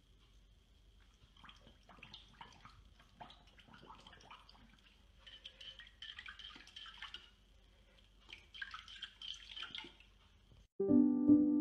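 A puppy's paw splashing and sloshing the water in its bowl as it paws at a toy bone lying in the water: light, irregular splashes and drips, busiest in two spells. Piano music cuts in suddenly near the end.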